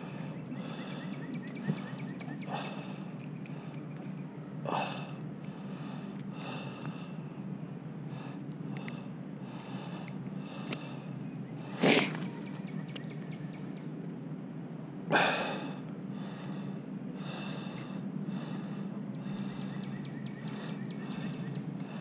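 A steady low hum with faint high chirps. Two short, loud breath-like noises come about 12 and 15 seconds in.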